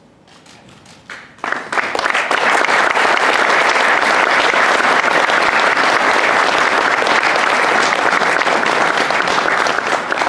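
Audience applause: a few scattered claps at first, then from about a second and a half in a full hall's loud, steady clapping.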